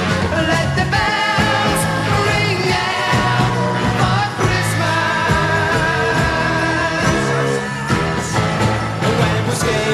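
Background music: a pop song with a singing voice over a band.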